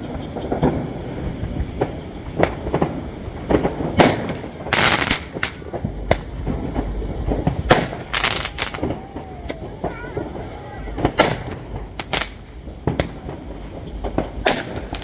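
Fireworks going off: many sharp bangs at irregular intervals, several of them drawn out into loud crackling bursts lasting about a second, over a continuous low rumble.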